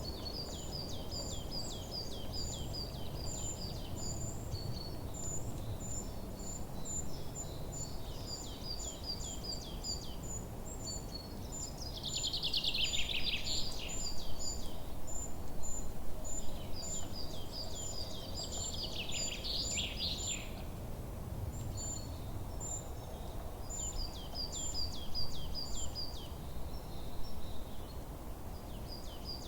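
Forest songbirds singing: a steady run of short high chirps, with two louder, rapid song phrases that fall in pitch, about twelve and nineteen seconds in. A steady low rumble of background noise lies underneath.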